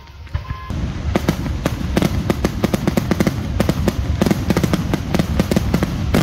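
Aerial fireworks shells bursting in a rapid barrage of sharp bangs and cracks, several a second, which sets in about a second in and keeps going.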